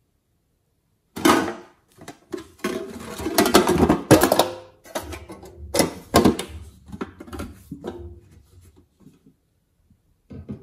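A tin coin-bank box with a wire latch being handled: a string of metallic clicks, clanks and rattles, loudest about a second in and around four seconds in, thinning out after about eight seconds.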